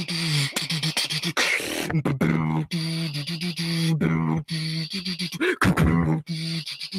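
Beatboxing: a held, buzzing low hum chopped into rhythmic pulses, interleaved with sharp mouth-percussion clicks and snares, with a couple of quick pitch sweeps near the end.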